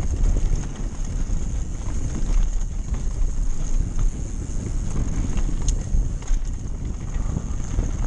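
Heavy wind rushing over the microphone of a fast-descending mountain bike, over a rough rumble of knobby tyres on a rocky dirt track, with a few sharp clicks and rattles from the bike.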